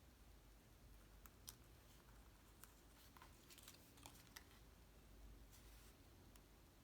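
Near silence with faint scattered clicks and short rustles of cardstock pieces being handled and lined up.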